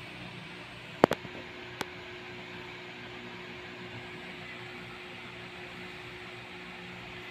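Electric stand fan running with a steady whir and low hum. A sharp double click about a second in, the loudest sound, and a fainter click just under a second later.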